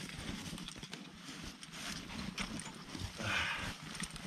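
Irregular small knocks and clinks of climbing gear (crampons, rope and pack) being handled and dragged over packed snow, with rustling of clothing and snow, and a louder rustle about three seconds in.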